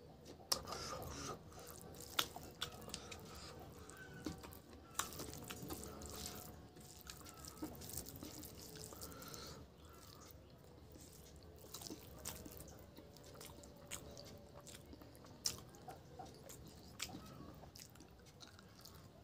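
A man chewing mouthfuls of rice and chicken curry, with scattered wet mouth clicks at irregular intervals.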